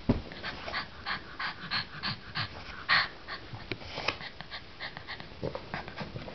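Chow Chow puppy panting in quick, even breaths, about three a second, growing sparser after about three seconds. A single thump sounds at the very start.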